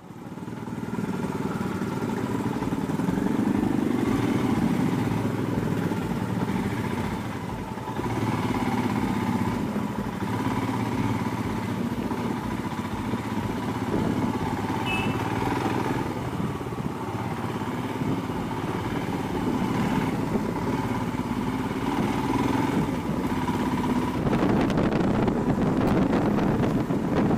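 Royal Enfield Himalayan's single-cylinder engine running steadily as the motorcycle is ridden, getting somewhat louder near the end.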